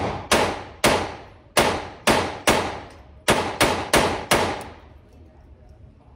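Ruger Standard .22 LR semi-automatic pistol fired in quick succession, about nine shots in four seconds with a short pause after the fifth, each crack ringing briefly off the walls of an indoor range. The firing stops about four and a half seconds in.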